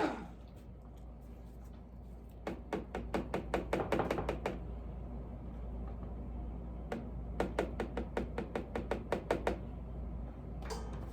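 A utensil clicking quickly and lightly against a mixing container as soap batter is stirred by hand, in two runs of about two seconds each.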